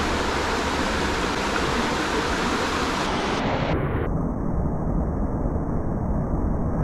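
Steady rush of flowing river water, turning duller about four seconds in.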